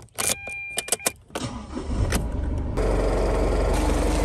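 Pickup truck (ute) started with the key: a few clicks and a short dashboard tone, then the starter cranks and the engine catches just under three seconds in and settles into a steady idle.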